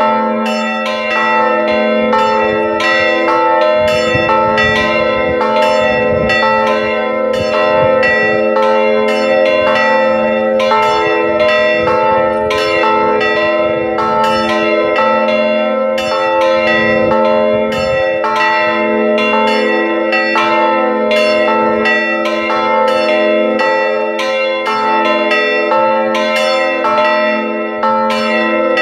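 Three church bells swinging in an open bell frame, all ringing together in a full peal (plenum). Their strikes fall unevenly and overlap in a continuous ringing, a call to Sunday Mass.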